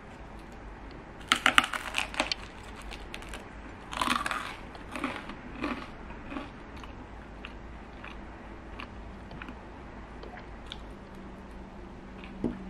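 Close-up eating sounds: biting into and chewing a slice of dark bread spread with whipped cream cheese. The loudest clusters of bites come about a second in and again around four seconds in, then quieter chewing, with a light knock near the end.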